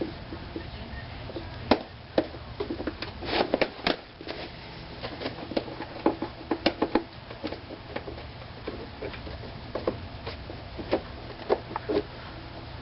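Irregular clicks, snaps and light knocks of hand work on plastic and metal parts, as the ABS wheel-speed sensor wire and its connector are unclipped and freed, over a steady low hum.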